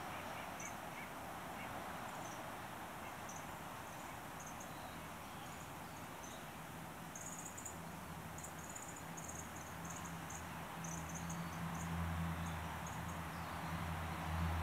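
Winter dawn chorus: small birds giving many short, very high, thin calls, thickest in the second half, over a steady background hiss. A low droning hum builds up in the last few seconds.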